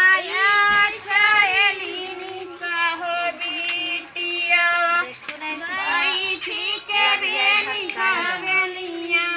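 Village women singing a Kajri folk song together, long held notes with wavering pitch, more than one voice overlapping at times.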